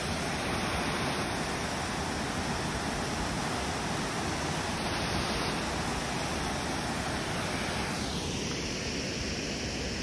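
Steady rushing of water from Dudhsagar Falls, a large four-tiered waterfall.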